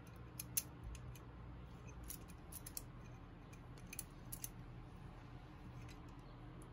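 Faint, scattered metallic clicks as an intake manifold clamp is worked into place by hand around a Shovelhead cylinder head's intake port. Several clicks come in the first half, over a steady low hum.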